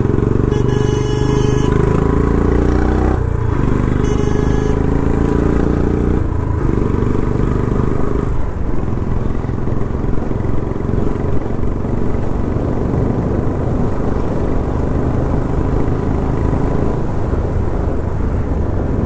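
Royal Enfield Bullet motorcycle's single-cylinder engine running, its pitch rising and falling a few times.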